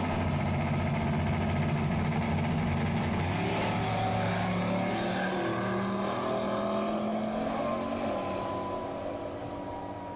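Turbocharged Ford-powered Fox Body Mustang drag car launching and running down the strip at full throttle beside its opponent, with no nitrous turned on. The engine is loudest at the start, changes pitch about three seconds in, then fades as the cars pull away down the track.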